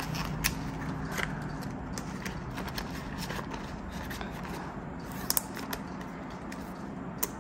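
Australian polymer banknotes and clear plastic binder envelopes handled at a desk: faint rustling and a few light clicks over a low steady hum.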